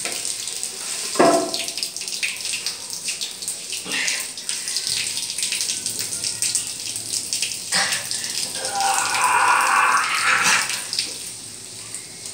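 Water running and splashing from a wall tap while its fitting is handled, a steady hiss with a louder rush about nine seconds in, lasting about two seconds.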